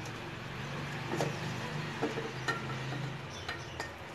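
Wooden spatula scraping and knocking in a metal kadai while cooked okra masala is scooped out onto a plate: a handful of light knocks over a low steady hum.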